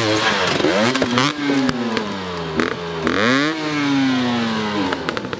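Enduro dirt bike engine revving up and down as the rider fights the bike, with several clattering knocks and scrapes of the bike against rock or ground.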